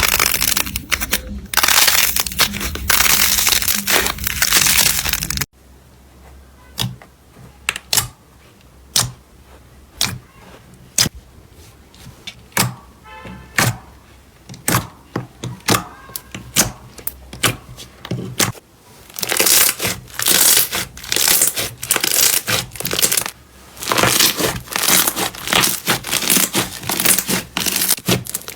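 Slime being pressed and squeezed: dense crackling at first, then sparse sharp clicks and pops, then dense crackling again from about two-thirds of the way in.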